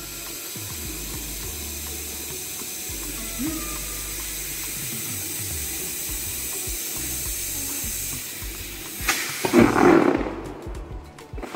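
Steady hiss of compressed oxygen flowing from a cylinder regulator through a hose into a plastic fish-transport bag. It cuts off with a click about nine seconds in and is followed by louder rough bursts near the end.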